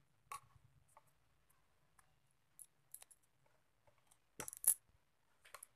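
Bangles on a wrist clinking lightly now and then as the hands wind cord round a stick, with a short cluster of louder clinks about four and a half seconds in.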